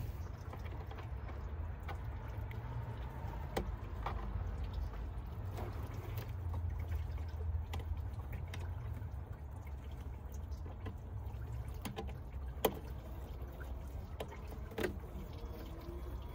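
Low steady rumble in the background, with a few faint, irregular clicks and taps of a hand tool on a metal coolant pipe fitting as it is worked loose in the engine bay.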